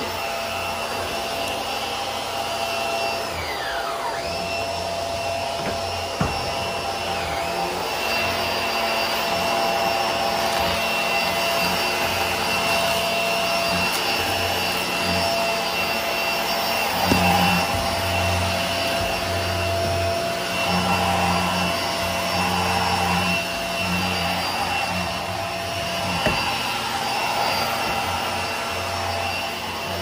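HART Pet Glide vacuum cleaner running with a steady high motor whine. Its low hum surges and fades unevenly as it is worked over the floor, and the whine dips in pitch twice in the first seconds. A few short knocks stand out.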